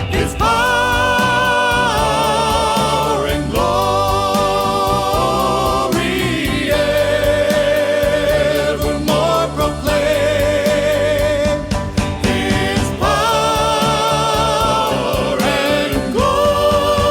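Music with singing: long held, wavering sung notes that change pitch every few seconds over a steady accompaniment.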